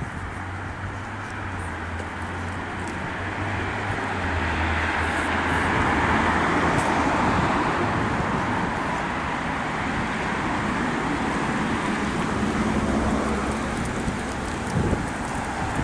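Road traffic: a motor vehicle passing, its tyre and engine noise swelling for several seconds and then easing off, over a steady low hum.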